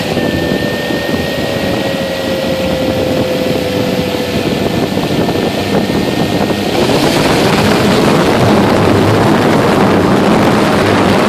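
Blade 350 QX quadcopter's four brushless motors and propellers running, heard from a camera mounted on the craft. About seven seconds in, the sound gets louder and brighter as it throttles up and lifts off.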